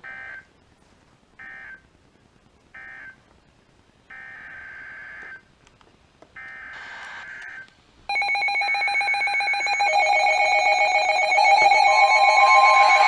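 NOAA Weather Radio EAS/SAME data tones: three short buzzing bursts marking the end of the severe thunderstorm warning, then two longer bursts starting the header of a new alert. About eight seconds in, a much louder electronic alert alarm of several pitches starts, pulsing at first, and the steady 1050 Hz weather radio warning tone joins near the end.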